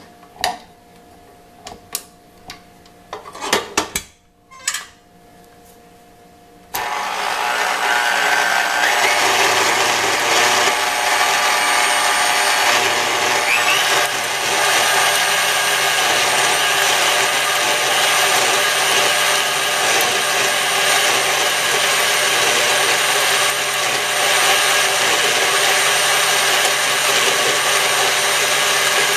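A wire whisk is fitted onto a KitchenAid Heavy Duty stand mixer with a few sharp metal clicks and knocks. About seven seconds in the mixer's motor starts suddenly and runs steadily, the whisk whipping egg whites in a stainless steel bowl.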